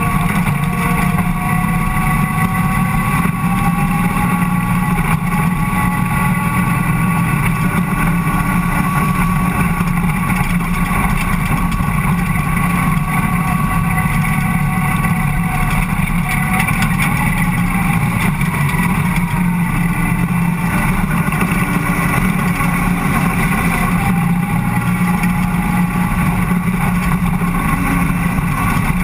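Ford Cortina race car's engine running steadily at racing speed, heard from inside the cabin: a loud, constant drone with a high whine that drifts slightly in pitch.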